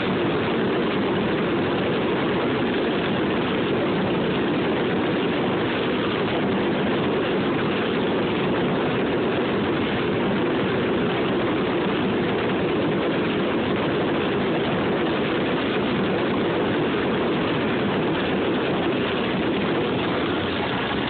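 Ground fountain fireworks spraying sparks: a steady, dense rushing noise with no separate bangs.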